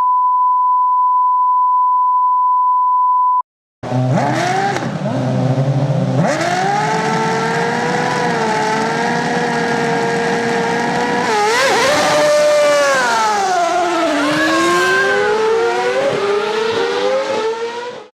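A steady high beep tone for about three and a half seconds, then a Formula 1 car engine at high revs. Its pitch holds, wavers, falls and then climbs again in a series of steps, as with gear changes.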